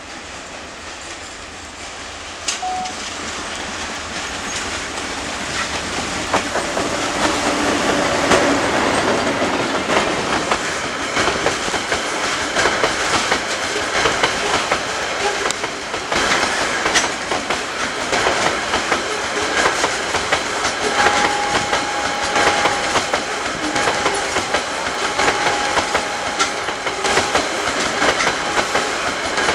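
Loaded coal train behind an ALCo RSD16 diesel locomotive rolling past, growing louder over the first several seconds as it comes near, then a continuous run of wheel clicks over the rail joints. A thin steady squeal sounds for several seconds in the second half.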